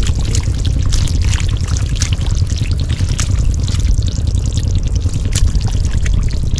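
Water pouring and splashing steadily, with many small splashes over a constant low rumble.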